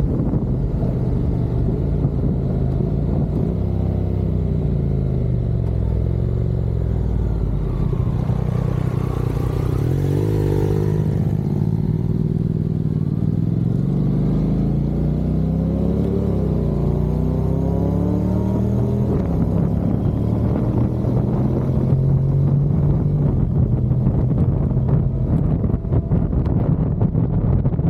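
Motorcycle engine running under way, its note slowly rising and falling, with wind buffeting the microphone.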